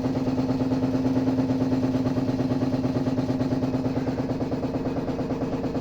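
Water pipes and a gas water heater (gas geyser) humming: a steady, loud drone on one low pitch with a fast flutter running through it.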